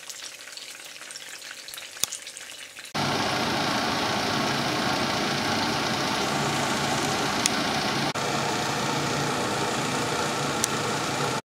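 Peppers frying slowly in hot oil in a frying pan: a faint crackle at first, then about three seconds in a much louder steady sizzle starts abruptly, with a few sharp pops, and cuts off suddenly at the end.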